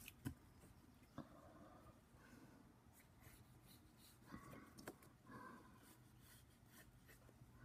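Faint mechanical-pencil strokes scratching on paper in several short bursts, with a sharp tap near the start.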